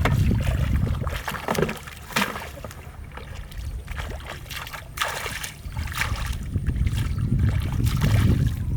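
Water sloshing and splashing in short irregular bursts over a steady low rumble.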